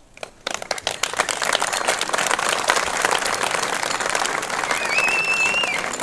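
A crowd of spectators applauding: the clapping starts about half a second in, builds quickly and stays dense. Near the end a single high held tone lasts about a second.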